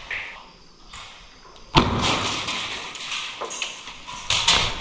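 A single sharp, loud thud about two seconds in, followed by a rushing, rustling noise, with another burst of noise near the end.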